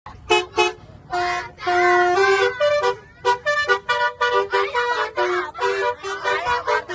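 Indonesian 'telolet' multi-tone bus horn playing a melody: two short toots, then longer held notes, then a quick run of notes.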